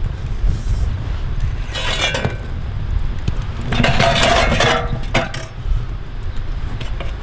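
Chunks of stone-pine charcoal clinking and clattering against each other around a charcoal-baked loaf, in two short clusters, the second a little after three and a half seconds in and the louder, over a steady low rumble.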